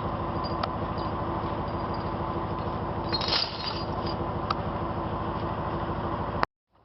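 Truck engine running steadily at idle, with a brief rattle about three seconds in; the sound cuts off abruptly near the end.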